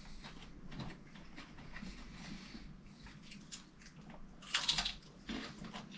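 People eating at a table: quiet chewing and small clicks of cutlery and fingers on china plates, with one brief louder hiss-like noise about four and a half seconds in.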